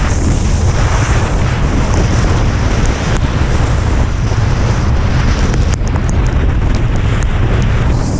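Extreme wind buffeting the microphone: a loud, steady low rumble with a rushing hiss above it. A few faint ticks come in about six seconds in.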